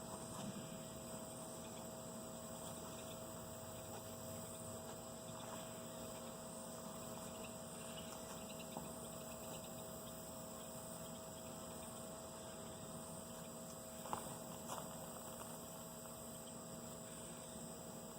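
Honeybees at an open hive, a faint steady hum of many bees buzzing, with a couple of small clicks about three-quarters of the way through.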